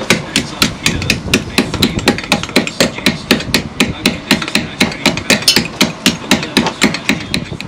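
Hammering: rapid, evenly spaced sharp strikes, about four to five a second, keeping up a steady rhythm.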